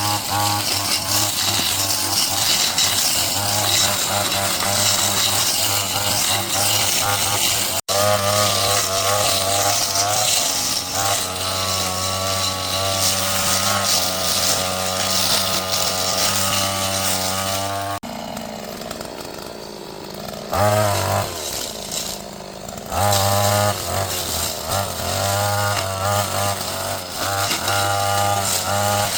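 Small petrol engine of a handheld power tool running at high speed, with a steady hum. About two-thirds of the way through it drops toward idle, revs briefly twice, then returns to full speed.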